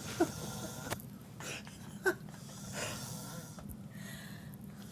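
A drunk man snoring heavily in his sleep, with wheezing, snorting breaths. A short, sharper snort comes near the start and another about two seconds in.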